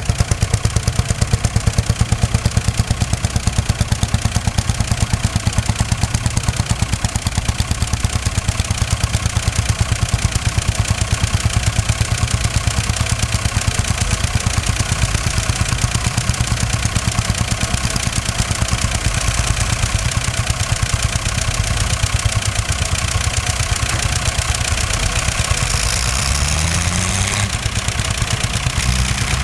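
Heavy diesel engines, a red International Harvester tractor and a Poclain wheeled excavator, running with a steady, fast, even clatter. Near the end one engine revs up, its pitch rising, as the tractor pulls away puffing black smoke.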